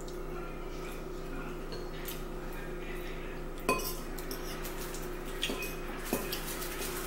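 Metal forks clinking and scraping against ceramic bowls during a meal. There are a few scattered clinks, the loudest about halfway through.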